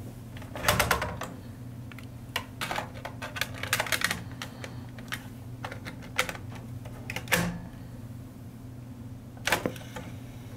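Cassette tape being handled and loaded into a cassette deck: a run of sharp plastic clicks and clatters, clustered about a second in, with single louder clicks around seven and nine and a half seconds in, over a steady low hum.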